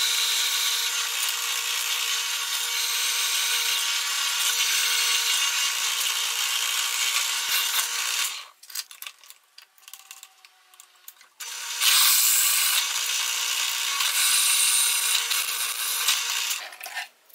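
Bench drill press boring through steel: the bit cutting with a steady, high, hissing sound over the hum of the motor. It stops about eight seconds in for roughly three seconds, then cuts again until near the end.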